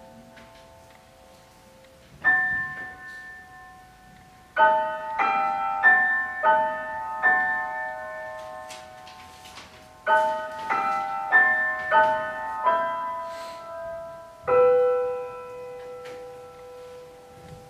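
Slow, sparse piano music: a chord about two seconds in, then phrases of single notes and chords, each struck and left to ring, with a pause in the middle and one long held note near the end.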